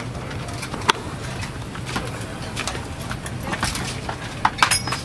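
Steady low drone of an airliner cabin, with sharp plastic clicks and knocks from a seat-back tray table and its latch: one about a second in and several in quick succession near the end.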